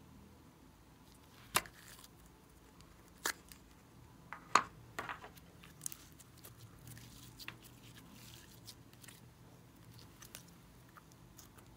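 A round plastic slime container snapped open with a few sharp clicks, the loudest about four and a half seconds in, then glossy slime pulled and stretched in the hands with faint sticky crackles.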